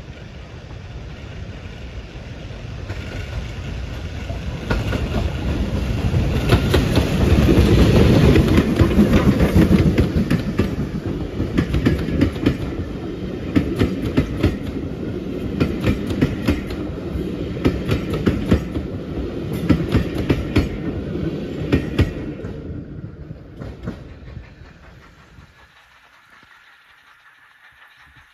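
Steam-hauled passenger train passing close by: it grows louder to a peak about eight seconds in as the locomotive goes past, then the coaches' wheels click over the rail joints in a steady clickety-clack. The sound dies away about 25 seconds in.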